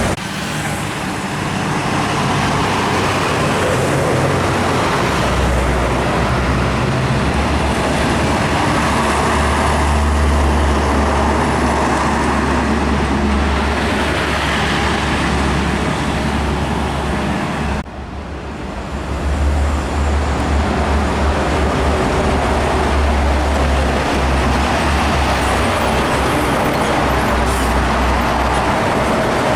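Heavy trucks passing on a busy highway: deep diesel engine sound with steady tyre and traffic noise. The level drops suddenly and briefly about two-thirds of the way through, then the traffic noise returns.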